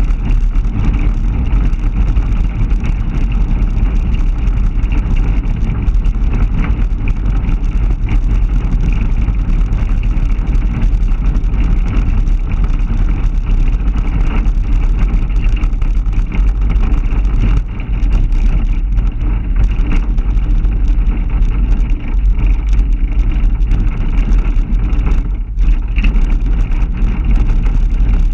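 Steady rumble of a moving pickup truck, road and engine noise, mixed with wind buffeting the camera's microphone in the open truck bed, easing briefly twice near the end.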